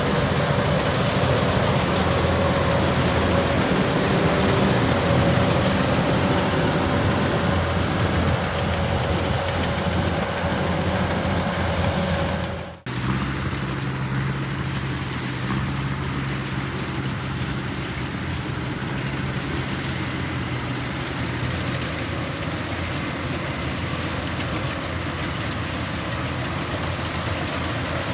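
Kubota DC-105X combine harvester running steadily as it cuts and threshes rice. The sound drops out for a moment about halfway through and comes back with a slightly different steady engine tone.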